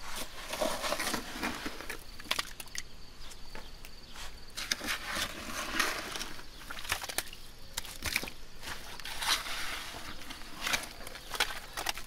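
Shovel digging in waterlogged privy-pit muck: irregular scrapes, squelches and sloshes of wet mud and water, with sharp clicks of the blade striking debris.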